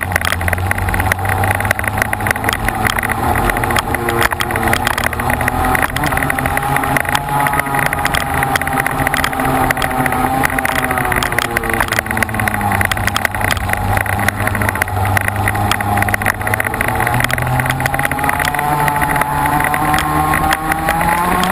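Racing vehicle's engine running hard, heard from on board: its pitch rises and falls with the revs, dropping about twelve seconds in and climbing again near the end.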